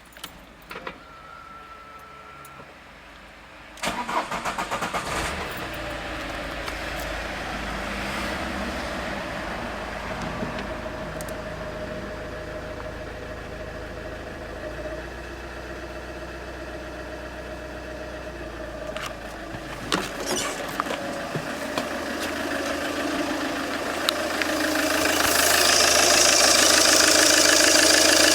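Peugeot 807 2.0 HDi four-cylinder turbodiesel engine starting about four seconds in, then running steadily at idle. Near the end it grows louder, with a lot of added high-pitched hissing noise.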